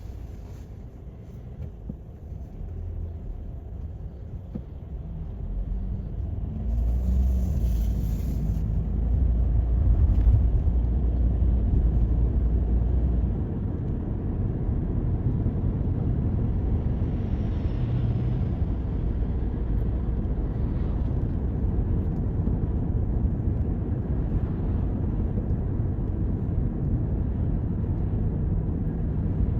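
Toyota Corolla's engine and tyre noise on the road, a steady low rumble. It is quieter for the first few seconds, grows louder from about six seconds in as the car picks up speed, then holds steady at cruising.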